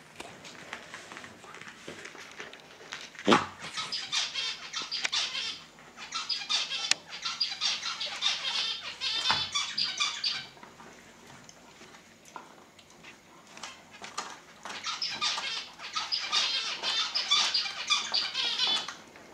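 An Old English Sheepdog gnawing and chewing a rawhide bone, a crackling chewing that comes in three bouts of a few seconds each. A single sharp knock comes a little before the first bout.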